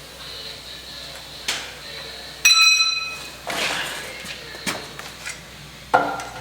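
Steel tire bar clanging against a truck wheel rim while a tire bead is levered on by hand: one sharp ringing clang about two and a half seconds in, another near the end, with lighter knocks and scrapes between.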